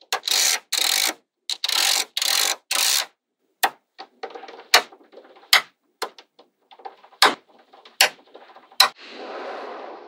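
Small magnetic balls clattering and snapping together as they are built into shape. Five dense rattles in the first three seconds, then single sharp clicks about once a second, with faint scraping between them and a softer rustle near the end.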